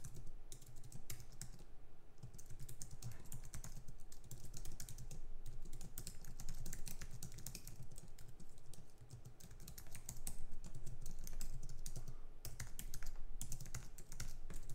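Fast typing on a computer keyboard, a dense run of key clicks with a brief lull a little past halfway.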